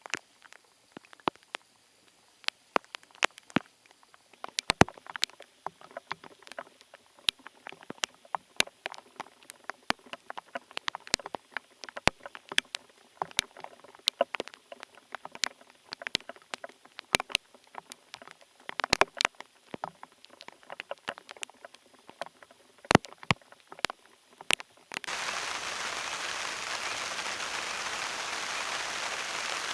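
Scattered raindrops tapping irregularly on a surface. Near the end the sound switches abruptly to the steady hiss of heavy rain.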